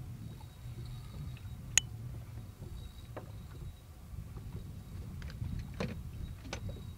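Steady low rumble of wind and water on open water around a boat, with a few scattered sharp clicks and knocks: the sharpest about two seconds in, several more in the last two seconds.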